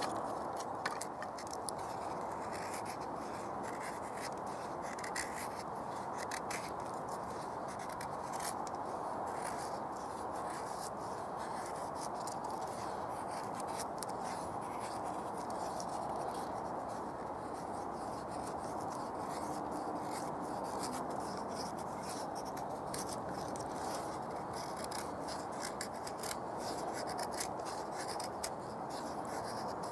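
A knife blade shaving thin curls down a split stick of wood to make a feather stick: a run of short scraping strokes over a steady background hiss.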